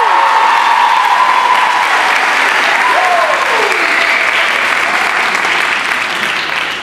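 A crowd applauding and cheering, with two falling whoops about three seconds apart. The applause tapers off slightly near the end.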